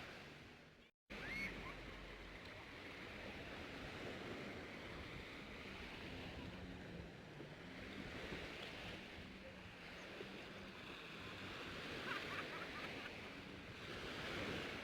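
Sea surf washing on the shore: a steady, fairly faint rushing hiss, broken by a brief dropout to silence about a second in.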